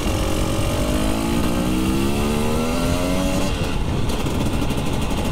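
Two-stroke Husqvarna motorcycle engine accelerating under way, its pitch rising, dropping at a gear change about a second and a half in, then rising again before it levels off, over steady road and wind noise.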